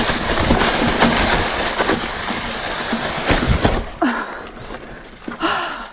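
Mountain bike rattling and clattering over a rough downhill trail, with tyre and wind noise. It quietens about four seconds in as the bike slows.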